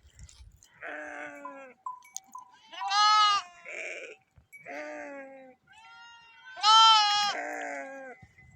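Goats and sheep bleating: a run of calls at different pitches from several animals, the two loudest about three seconds in and near seven seconds.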